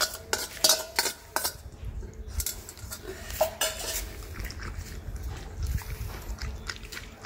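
A steel spoon scraping and clinking against stainless steel bowls as wet cooked food is tipped into a steel dog bowl, with several sharp clinks in the first second and a half. Then a dog eating the wet food from the steel bowl.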